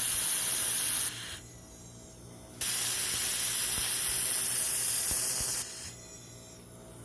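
Handheld fiber laser welder running on thick aluminium, a loud high-pitched hiss in two welding passes: the first cuts off about a second in, the second starts a second and a half later and runs about three seconds before stopping near the end.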